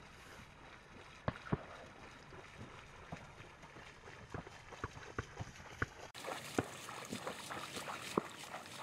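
Scattered knocks and rustles in a reed blind. About six seconds in, a retriever dog wades through shallow water and reeds, splashing.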